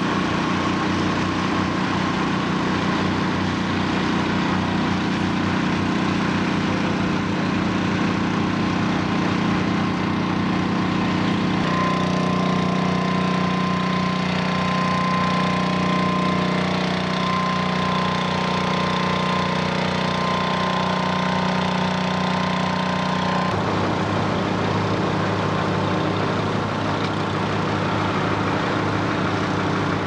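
Fire truck engine running steadily at the fire scene: a loud, even mechanical hum whose note shifts abruptly twice, about a third and two-thirds of the way through.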